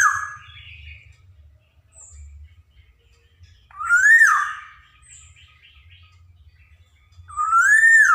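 Black-naped oriole (kepodang) calling: a single whistled note that rises and then drops sharply, repeated about every four seconds. One call is ending as the sound begins, one comes about four seconds in, and one near the end.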